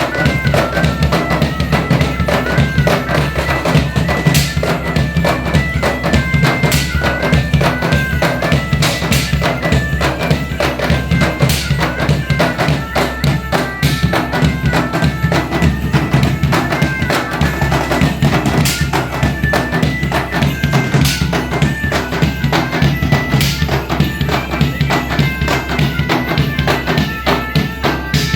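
Bagpipe music with drums: steady drones under a melody that steps from note to note, with regular drum beats.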